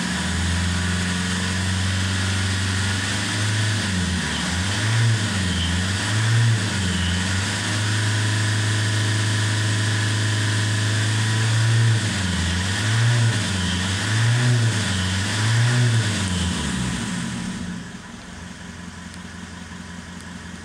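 2014 Mitsubishi Triton's 2.5-litre four-cylinder turbo diesel revving in Park. It rises and falls in several short blips, holds a raised speed for a few seconds, blips again, then drops back to a quieter idle near the end.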